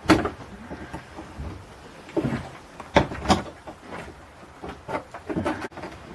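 Wooden knocks and scrapes as a small loose block of rotten rib wood is prised and worked at with a hand tool in a boat's bilge. There are several separate knocks, the sharpest at the start and about three seconds in.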